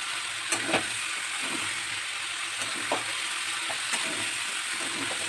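Chopped bottle gourd cooking in spiced oil in a pan with a steady sizzle, while a spatula stirs it and knocks against the pan a few times.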